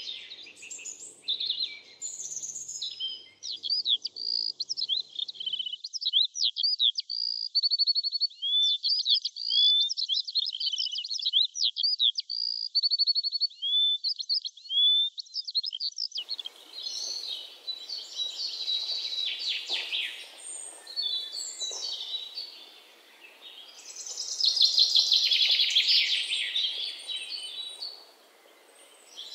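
Small songbirds singing and chirping: a long run of quick, varied whistled notes and trills, then busier overlapping chirps, loudest about three quarters through.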